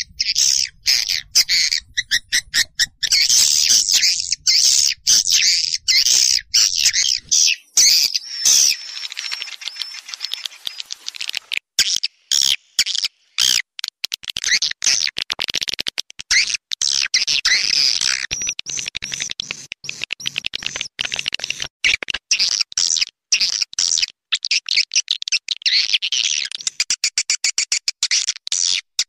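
Edible-nest swiftlets chattering: a dense, continuous mass of rapid high twittering calls, cut by frequent abrupt short gaps. This is a swiftlet lure call recording, played to draw swiftlets into a nesting house.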